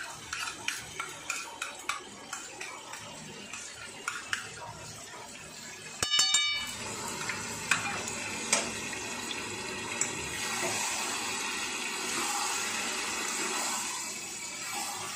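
A spoon scrapes onion-ginger-garlic paste off a plate into a steel kadai, with quick clicks and taps of metal on metal. About six seconds in there is a brief loud buzzy tone, and after it the chicken and paste sizzle in the oil. A metal spatula stirs and scrapes against the pan.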